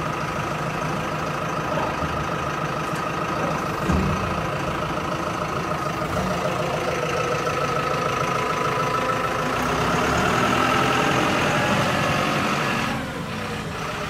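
A truck engine idling steadily, with a held tone over the drone. It gets a little louder past the middle and eases off near the end, with one short knock about four seconds in.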